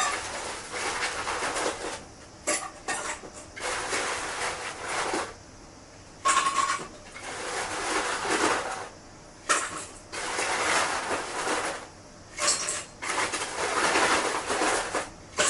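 Kitchen washing-up: dishes and utensils clink and clatter among repeated hissing bursts a second or two long, with a short ring of struck crockery about six seconds in.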